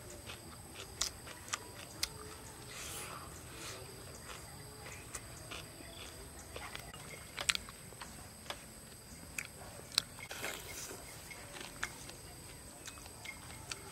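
Crispy roast chicken leg being pulled apart by hand and chewed: scattered sharp crunches and wet mouth clicks, loudest a little past halfway, over a steady high background tone.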